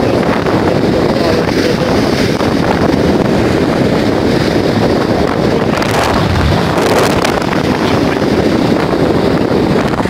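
Heavy wind noise on the microphone, with storm surf breaking on the shore.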